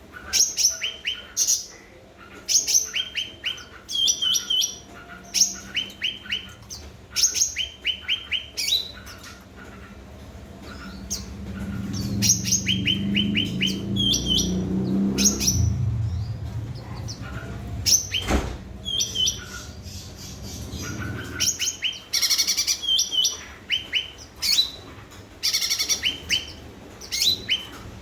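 Cucak ranting bird singing hard, repeating short phrases of quick, high chirps every second or two. A low rumble rises through the middle and fades again, with a sharp click partway through.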